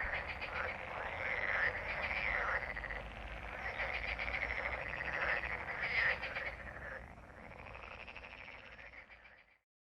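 A breeding chorus of frogs: many overlapping croaks, each a rapid run of pulses, calling to mate. The chorus drops in level about seven seconds in and cuts off suddenly near the end.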